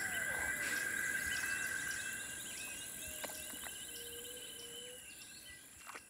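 Steady insect trilling with a few bird calls over it, including one long call held for a few seconds around the middle; the whole fades out toward the end.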